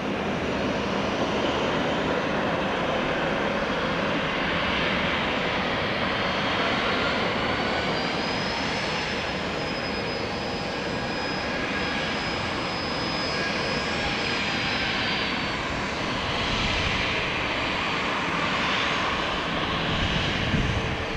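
Jet airliner engines running with a steady, even roar. A thin high whine comes in about a third of the way through, holds for several seconds, then fades.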